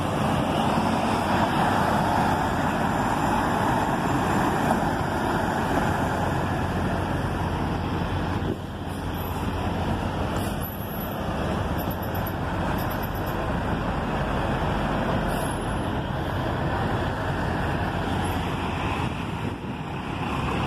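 Semi-truck's diesel engine running steadily as the tractor-trailer maneuvers at low speed to back into a loading dock.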